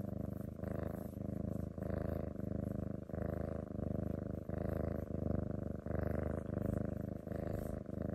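Domestic cat purring steadily, the purr breaking briefly between breaths, a little more than once a second.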